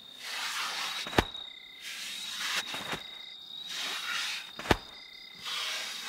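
Night ambience of crickets and other insects chirping steadily, with a high continuous trill and a lower chirp that comes and goes. About every second and a half a soft swish rises and fades, and sharp single knocks land four times.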